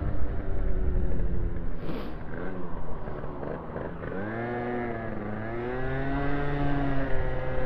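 Moped engine running at low revs through a bend, then revving up twice, about four and six seconds in, as the throttle opens, before holding a steady pitch near the end.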